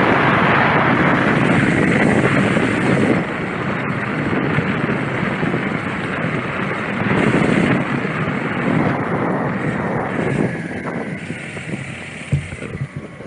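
Wind rushing over the camera's microphone as a steady loud rush, easing off over the last few seconds.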